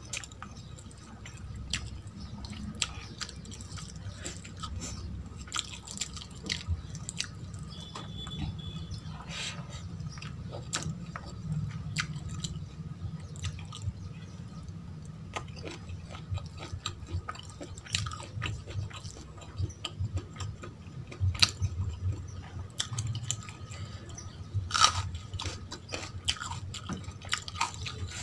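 Close-miked chewing of rice and chicken liver curry, with many short wet mouth clicks and smacks throughout and a few sharper ones in the last third.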